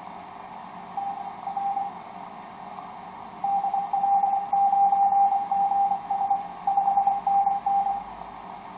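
Morse code (CW) signal received on a Yaesu FT-1000MP shortwave transceiver on the 12 m amateur band: a single mid-pitched beep keyed on and off in dots and dashes over steady receiver hiss. A short burst comes about a second in, then a longer run of characters from about three and a half seconds to eight seconds.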